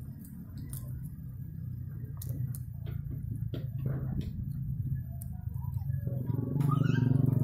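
A steady low mechanical hum with scattered sharp clicks. It grows louder about six and a half seconds in.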